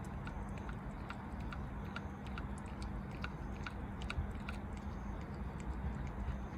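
A cat with stomatitis eating canned tuna: short, wet chewing clicks about two a second, over a steady low hum.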